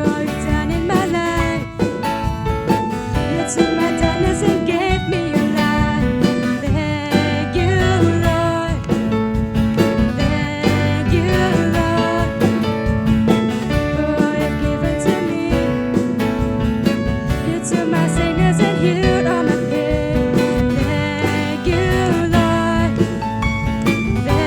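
Worship song playing: band music with guitar and a steady beat.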